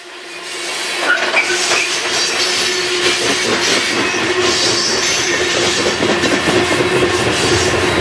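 Union Pacific coal train's cars rolling past: a steady noise of steel wheels on rail, with a few short high wheel squeals between about one and two seconds in.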